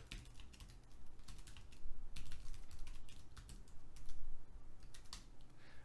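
Typing on a computer keyboard: quick keystrokes in short runs with brief pauses as a command is entered.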